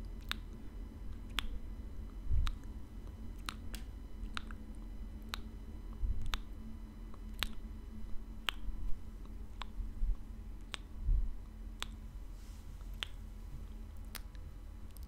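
Wet mouth clicks made close to the microphone, sharp and irregular at about one a second, with a few soft low thumps in between.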